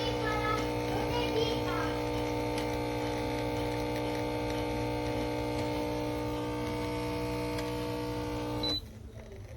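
Espresso machine's pump humming steadily as it pulls a shot, then cutting off abruptly near the end with a short high tone as it stops.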